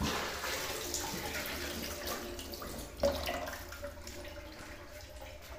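Kitchen tap water running into a stainless-steel sink as dishes are washed by hand, with a sharp clatter of a dish or utensil about three seconds in.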